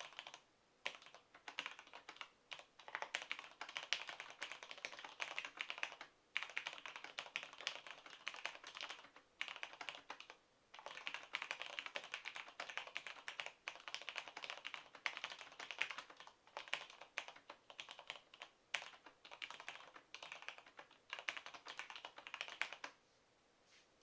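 Steady typing on a Cherry G80-3000 mechanical keyboard with stock Cherry MX Black linear switches and POM blank keycaps: a dense clatter of keystrokes with a few brief pauses, stopping about a second before the end.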